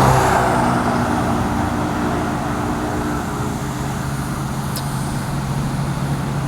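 Highway traffic: a passing truck's tyre and engine noise rushes loudest at the start and fades away without a horn, leaving a steady low engine hum.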